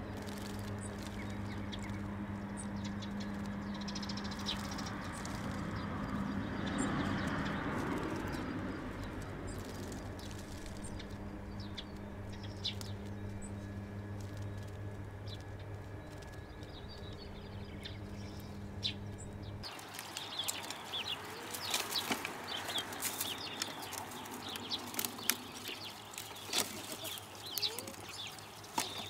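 A blue tit bathing in a bird bath: small splashes and wing flutters over a steady low hum that swells and fades about seven seconds in. Then jackdaws feeding on a wooden seed tray: many sharp pecking clicks, wing flaps and short bird calls.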